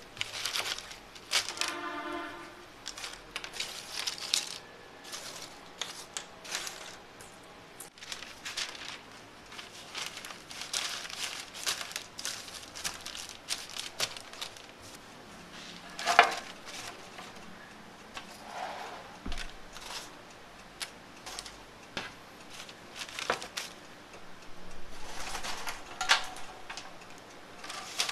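Thin strips of cut plastic and sheets of paper being handled: irregular light rustling, crinkling and clicking as the strips are picked up, dropped and laid out, with a short squeak about two seconds in and a sharper knock a little past halfway.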